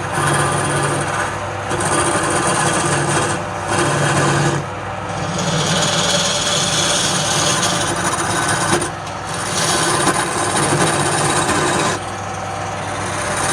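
Wood lathe running with a steady motor hum while a turning tool cuts the spinning wood with a rough scraping noise. The cutting noise drops out briefly several times.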